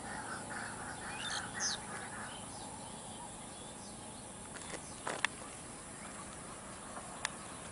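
Birds chirping and calling over a steady hiss of open-air background, the calls clustered in the first two seconds, with two short sharp clicks in the second half.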